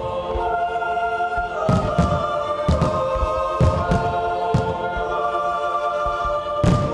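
Choir singing long sustained chords as the musical soundtrack of a fireworks show, with about six low firework booms at uneven intervals, the strongest near the end.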